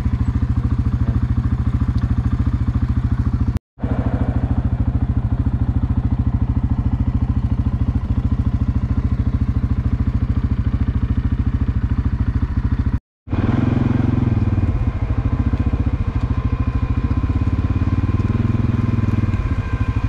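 An engine running steadily close by, with an even low pulsing. It breaks off completely for a moment twice, and a few steady higher tones join it in the last part.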